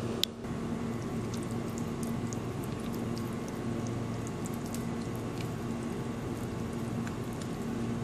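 A spoon scooping thick onion-tomato masala in a bowl: soft squishing and light scattered clicks, with one sharper click just after the start, over a steady low hum.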